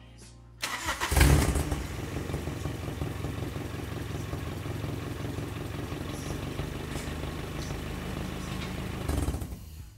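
Toyota 4A-GE 20-valve four-cylinder engine, fitted with a new turbo, starting up with a loud catch about a second in, then idling steadily. There is a short rise in level near the end before it drops away.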